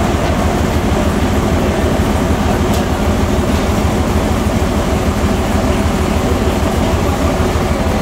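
A forklift's engine running steadily at close range, a loud, even, low rumble that does not change.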